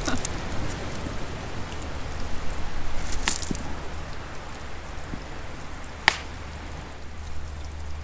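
Outdoor ambience: a steady low rumble and soft even hiss, broken by a few sharp clicks, the loudest about six seconds in.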